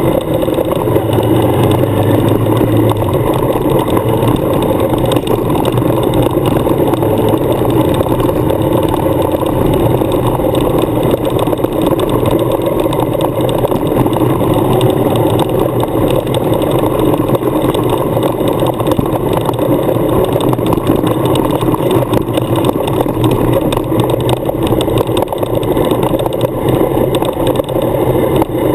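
Suzuki adventure motorcycle's engine running steadily as the bike rides along a gravel track.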